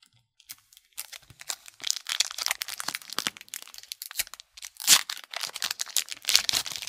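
Foil hockey card pack wrapper crinkling and being torn open by hand, a dense run of crackles starting about a second in, loudest near the middle.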